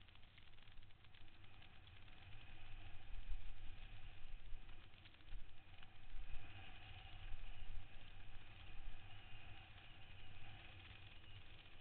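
Downhill mountain bike running fast down a loose gravel trail, heard from a helmet camera: wind buffets the microphone with a low rumble that swells and fades, while the tyres and frame give off a run of small rattles and ticks. A faint steady whine comes in about halfway.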